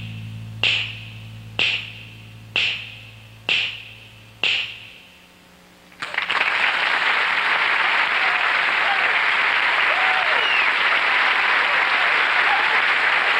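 Finger snaps keeping a slow beat, about a second apart and five in all, over a low held bass note that dies away. After about a second of quiet, an audience breaks into steady applause.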